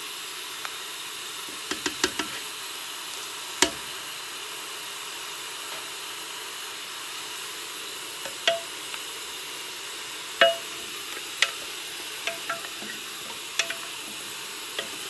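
Meat and onions sizzling steadily in an aluminium pot while spoons tap and knock against the pot and a glass bowl: a few sharp taps in the first seconds as seasoning is spooned in, then a run of wooden-spoon knocks as the meat is stirred, some with a brief metallic ring.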